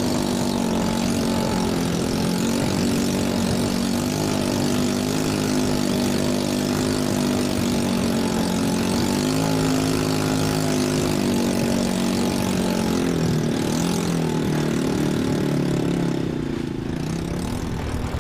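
Engine of a small outrigger fishing banca running steadily under way, over the rush of spray and wind. Near the end the engine note drops and gets quieter as the boat throttles back.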